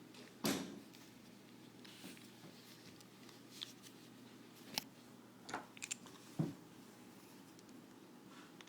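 Scattered small clicks and light knocks of parts being handled while working on an airsoft rifle's gearbox and lower receiver, about six in all, the loudest about half a second in and again about six and a half seconds in.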